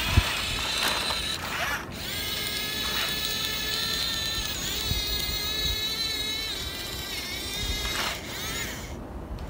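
Small electric gear motors of radio-controlled toy construction vehicles whining as they run: the whine spins up about two seconds in, holds steady, and winds down near the end. A sharp knock sounds right at the start.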